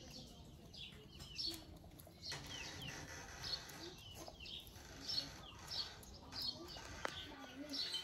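Small birds chirping in the background, short high falling chirps repeated every second or so, with a few faint clicks.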